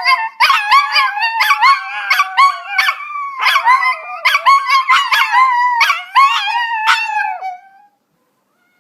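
Chihuahua howling in high-pitched, wavering calls broken by short sharp yips, stopping about a second before the end.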